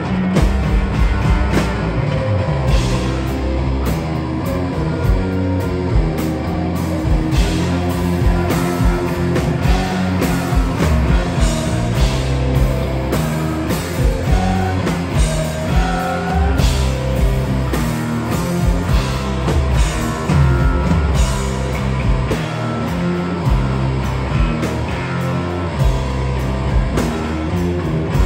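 Live rock band playing: guitars over a drum kit, with the beat continuing without a break.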